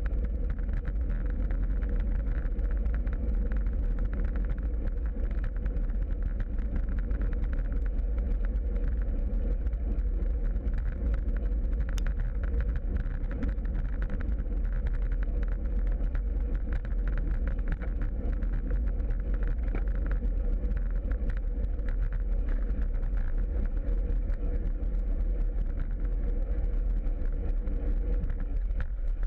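Road noise of a bicycle riding on asphalt, picked up by a bike-mounted camera: a steady low rumble of wind on the microphone with a faint constant hum.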